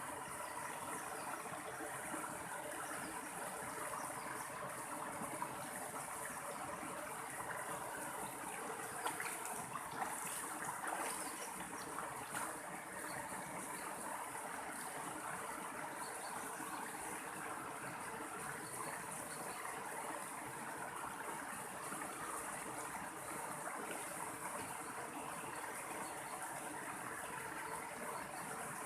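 Mountain stream running steadily over rocks, with a few louder splashes about a third of the way in.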